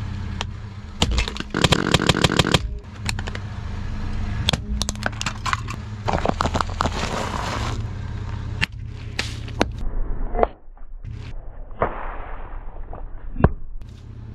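A car tyre slowly crushing objects on asphalt over a low, steady engine hum. Early on an LED work light's plastic housing breaks in a rapid run of sharp cracks and snaps, followed by scattered single cracks, and later two stretches of crinkling hiss as packets are squashed and split open.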